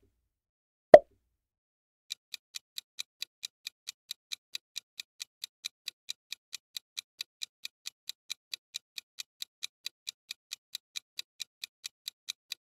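Quiz countdown-timer sound effect: a single short pop about a second in, then evenly spaced clock ticks, about four a second, counting down the answer time.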